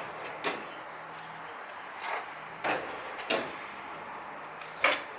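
Drawers of a stainless steel tool roll cabinet being slid open and shut, giving a handful of separate clacks and knocks; the loudest comes near the end.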